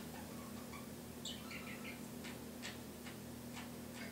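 Timneh African grey parrot making faint sounds: a few short chirps about a second in, then a run of soft clicks at about two to three a second.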